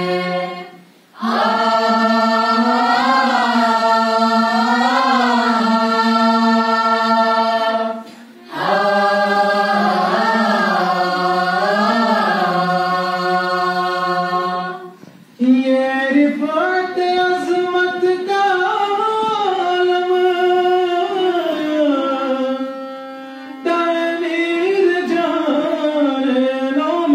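Voices singing a tarana, an Urdu anthem, in long drawn-out melodic phrases with little or no accompaniment, pausing briefly between phrases about every seven seconds.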